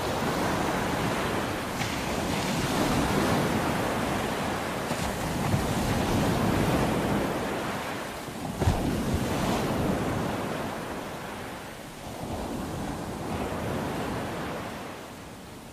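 Surf washing in, a rushing noise that swells and fades in slow waves every few seconds. There is one short sharp knock about halfway through, and the sound falls away near the end.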